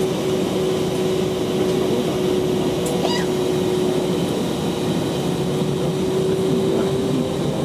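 Airbus A319 jet engines running before takeoff, heard inside the cabin: a steady rumble with a constant hum-like tone. A brief high squeak comes about three seconds in.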